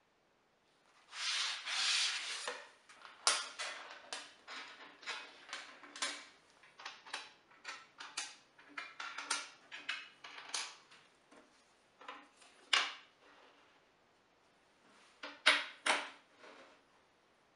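Thin wooden runner strips being slid and seated in the metal miter slots of a table saw top. It starts with a short scraping slide, then a run of light clicks and taps about two a second, and ends with two sharper knocks.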